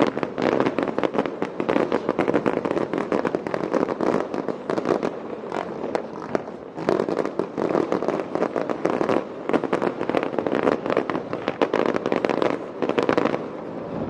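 Aerial fireworks crackling and popping in a dense, rapid barrage, easing briefly about halfway through and thinning out near the end.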